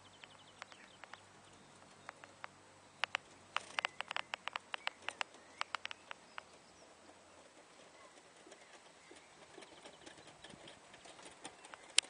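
Pony trotting in harness with a four-wheeled carriage: a run of sharp, irregular clicks and knocks a few seconds in, then quieter, with one loud click just before the end.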